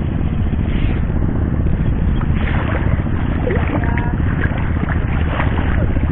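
Steady low rumble of wind buffeting the microphone over open, shallow sea water, with a faint voice briefly about four seconds in.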